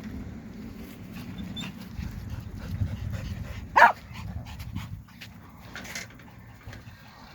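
A dog barks once, short and sharp, a little past the middle, over a low rumble in the first few seconds.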